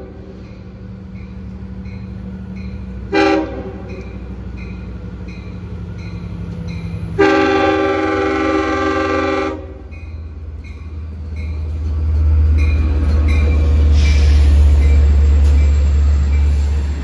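Long Island Rail Road train horn sounding a chord: a short toot, then a long blast, over a grade-crossing bell ringing about three times a second. Then a loud low rumble builds as the train pulls in alongside the platform.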